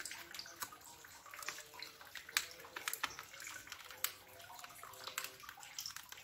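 Thin clear plastic lids handled and pressed onto small plastic pudding cups: irregular sharp plastic clicks and crinkles, about one every second.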